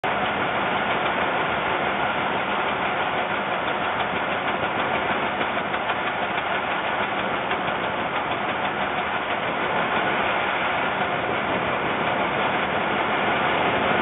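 Strong wind buffeting the nest-box camera's microphone: a steady rushing noise with no let-up.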